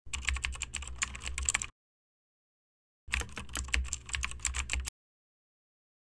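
Computer keyboard typing sound effect: two runs of rapid key clicks, each under two seconds long, with dead silence between them and after.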